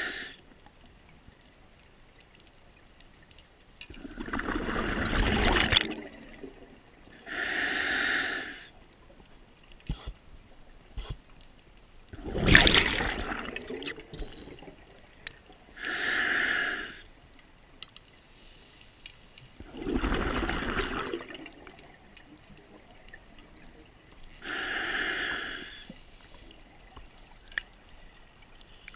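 Scuba diver breathing through an open-circuit regulator underwater: a slow cycle of hissing inhalations alternating with bursts of exhaled bubbles, three of each, about one breath every eight seconds.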